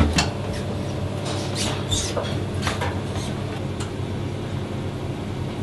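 Handling noise from a cold-water inlet hose being connected to the back of a washing machine: a few scattered clicks and scrapes over a steady low background hum.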